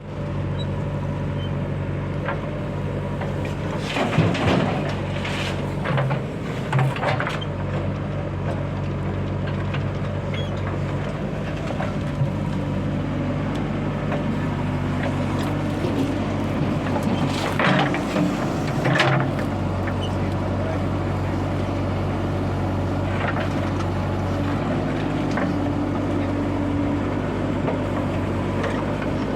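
Diesel engines of a backhoe loader and tractors running steadily, their note shifting a little after the middle. Several short, loud clattering crashes come about four to seven seconds in and again twice near the middle.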